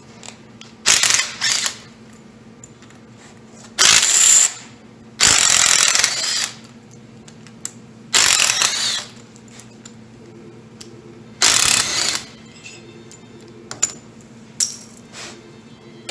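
Cordless impact driver with a 5/16 Allen bit backing out the socket head cap screws of a Bridgeport milling machine's table end cap, running in six bursts of a second or less with pauses between. A few light metal clicks follow near the end.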